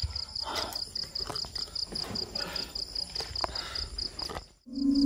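A cricket chirping steadily in a high pulsed trill, about five pulses a second, over rustling and handling noises with a few light knocks. Near the end the sound cuts off suddenly and music with a low held tone begins.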